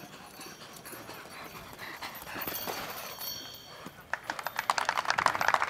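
Horse hoofbeats on the arena ground: faint at first, then a quick, loud run of hoof strikes from about four seconds in.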